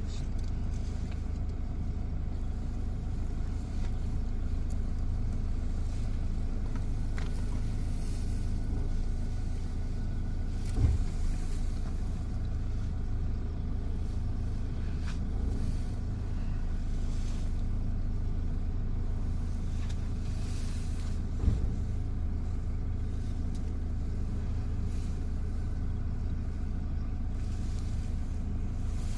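A vehicle engine idling steadily, a low even hum, with two brief thumps, the first about a third of the way in and the second about two thirds in.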